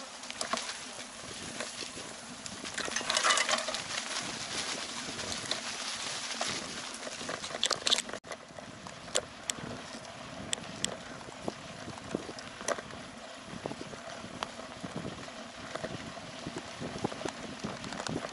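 Bicycle riding over a sandy, gritty dirt track: tyres crunching on sand with scattered clicks and rattles from the bike. There is a louder stretch of rushing noise about three seconds in.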